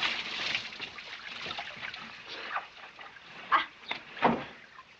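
Water sloshing and splashing in a barrel as a person is scrubbed in it, with a few sharper splashes in the second half.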